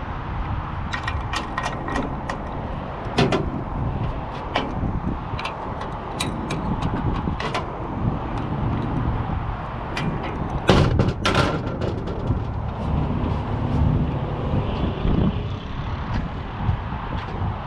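Scattered clicks and light metallic knocks of hand work on an outdoor AC condenser unit during a fan motor replacement, with a louder cluster of knocks about eleven seconds in, over a steady low background rumble.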